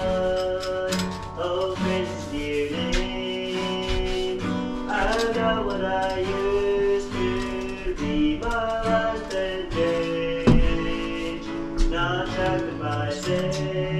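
Music: acoustic guitar played with a voice singing along.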